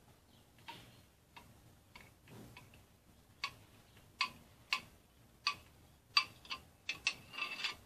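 A metal spoon clinking against the rim of a glass jug as lemon glaze is poured out over it: about a dozen short, light clicks, spaced apart at first and coming faster in the last few seconds.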